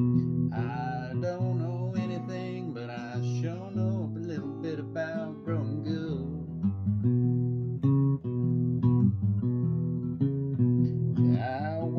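Steel-string acoustic guitar played with the fingers, a song of picked notes and chords. A voice sings along over it from about half a second in to about six seconds, and comes in again near the end.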